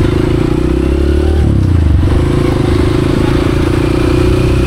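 Motorcycle engine running steadily at low speed. Its note dips briefly about a second and a half in, then holds steady again.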